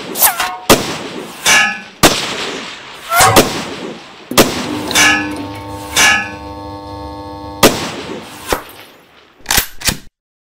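Sound effect of gunshots with bullets striking a steel plate: about a dozen sharp cracks at uneven intervals, several followed by a ringing metal tone.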